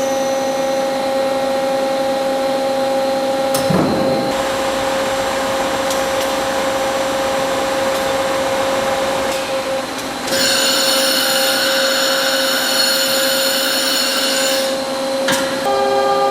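Hankook CNC machining center running with a steady, multi-toned whine. About four seconds in there is a short falling sweep, and from about ten to fifteen seconds in a loud hiss rises over the whine and then stops.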